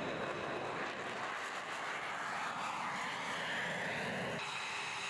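F-35B Lightning II's single F135 turbofan jet engine noise as the jet climbs out just after takeoff, a steady, broad rushing sound with a slow shift in pitch as it passes. The sound changes abruptly about four seconds in.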